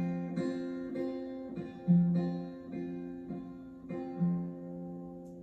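Acoustic guitar playing the closing bars of the song: a few plucked notes and chords, the last one about four seconds in, left to ring and fade out.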